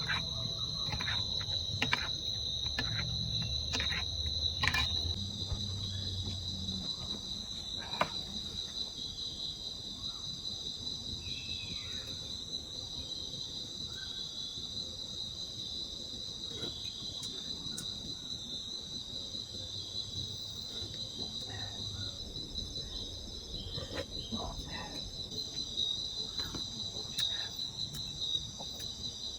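Forest insects, crickets or similar, singing as a steady high-pitched chorus, with a few sharp clicks and knocks mostly in the first few seconds.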